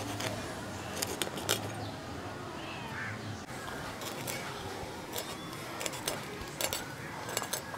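Small fish being scaled against the edge of an aruvamanai, a curved floor-mounted iron blade: short, irregular scratchy clicks as the scales are scraped off.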